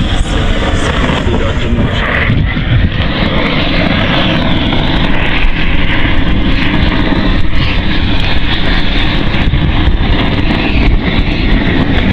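Handheld gas-canister torch burning steadily, heating a sheet of waterproofing membrane to stick over a leaking water pipe.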